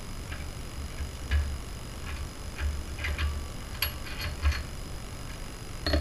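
Irregular metallic clicks and light knocks from a socket wrench and tools working the hub's mounting bolts, with a short run of clicks a few seconds in.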